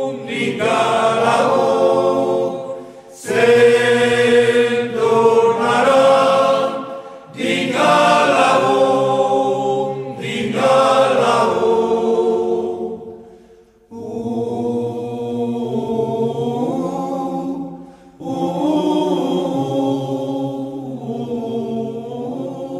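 A choir singing without instruments, in phrases of about three to four seconds with short breaks between them.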